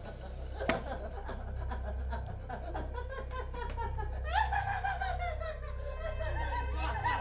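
Several people laughing and snickering together in overlapping bursts, with one sharp click about a second in and a louder, longer laugh starting about four seconds in. A steady low hum runs underneath.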